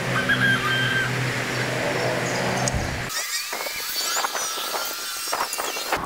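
A steady, low mechanical hum like a distant engine, with birds chirping over it; about three seconds in the hum cuts off and birdsong goes on.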